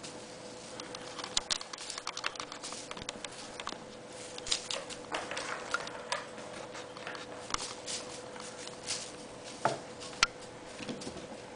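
RagaMuffin kittens scampering and batting at a toy on a hardwood floor: irregular light pattering and clicking of paws and claws, with a faint steady hum underneath.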